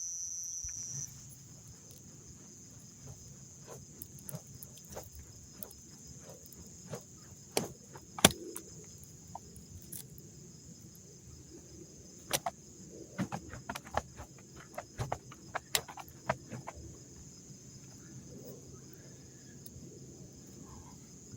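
Crickets trilling in a steady high-pitched drone, loud for the first second and then fainter. Scattered sharp clicks and knocks run over it, the loudest about eight seconds in.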